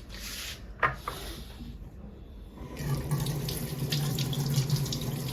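Water running from a kitchen tap into a sink, splashing. There is a sharp click just under a second in, and the flow turns louder and fuller about three seconds in.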